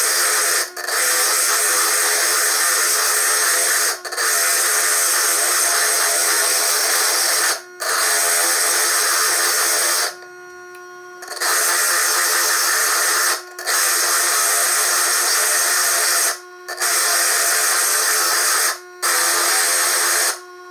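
Foredom bench lathe spinning a core drill with a hand-held stone pressed into its end to grind it toward a sphere: a steady hissing grind over the motor's hum. The grind breaks off briefly about every three seconds as the stone is lifted and turned, with one longer break of about a second near the middle, while the hum carries on. The footage is sped up threefold.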